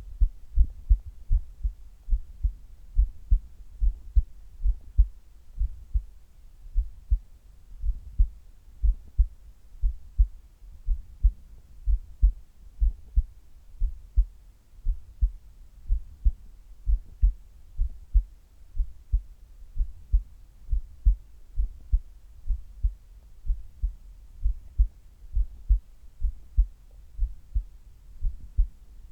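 A human heartbeat heard close up through the chest: a steady, regular train of low thumps, beating under the exertion of sit-ups.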